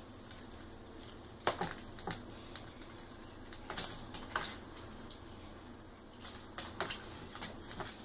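White-eyed conure bathing: short bouts of splashing and wet wing-fluttering in a shallow dish of water, coming in several bursts of quick sharp patters, about a second and a half in, around four seconds and near seven seconds.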